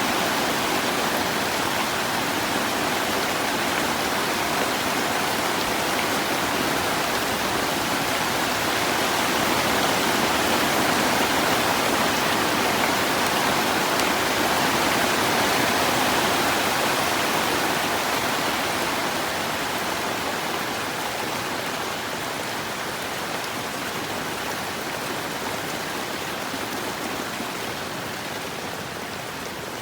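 Heavy rain pattering steadily on a plastic greenhouse roof, a dense even downpour that eases a little over the last ten seconds.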